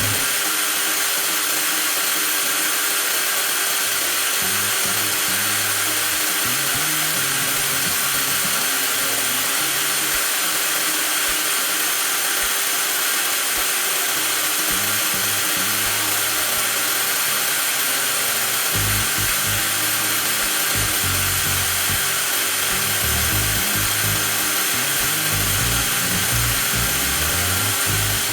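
TOTAL 20V brushless cordless angle grinder running continuously at steady full speed, a constant high whine with hiss, while its battery is run down.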